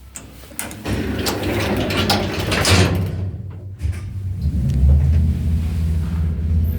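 Old Soviet TsRZM passenger lift with Parnas controls: clicks and rough scraping from the car and its mechanism, then, from a little past halfway, a steady low hum as the lift runs.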